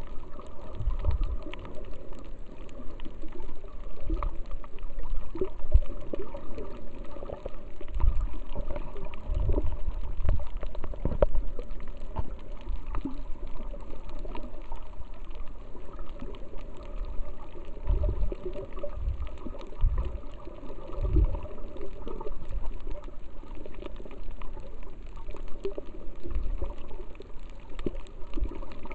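Muffled underwater noise heard through a waterproof camera housing: water sloshing, with irregular low thumps.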